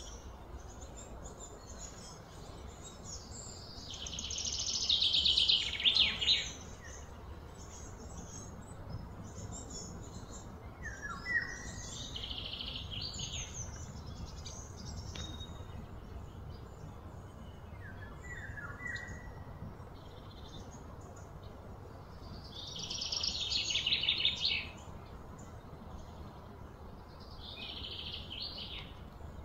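Wild birds calling outdoors: rapid high trilling phrases a second or two long, the loudest about four seconds in and again near the end, with a few short falling chirps in between, over a low steady rumble.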